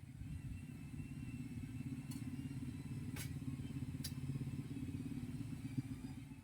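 An engine running steadily with a low, rapidly pulsing rumble, with a few sharp clicks about two to four seconds in.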